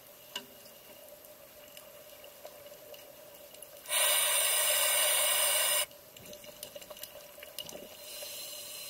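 A scuba regulator underwater, with a diver breathing through it: about four seconds in, a loud burst of exhaled bubbles lasts roughly two seconds. Around it is a faint background of scattered clicks and a low steady hum.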